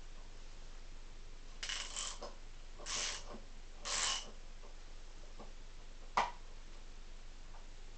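A wrench turns the bolt of a flywheel puller on a Derbi moped engine, giving three short metallic bursts about a second apart. A single sharp metallic click follows about six seconds in.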